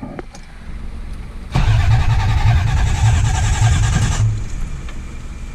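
Freshly rebuilt Toyota 5M-GE straight-six running just after its first start. It is revved from about a second and a half in, held up for roughly two and a half seconds, then drops back to a steady run with no odd noises.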